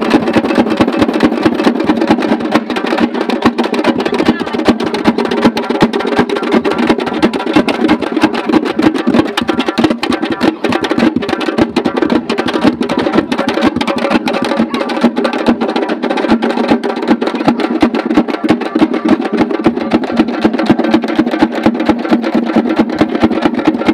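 Frame drums (dappu) beaten hard in a fast, unbroken rhythm, with crowd voices underneath.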